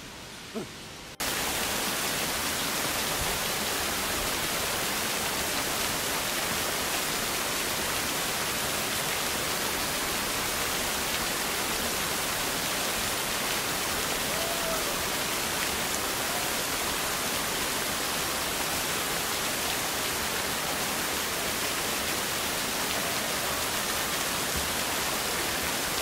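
Waterfall spilling down a rock wall into a pool: a steady, even rush of falling water that starts abruptly about a second in.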